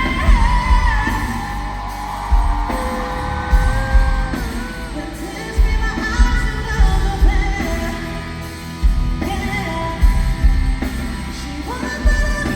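Live pop-rock song performed loud through a hall PA: a sung melody with long held, gliding notes over a heavy kick drum and bass.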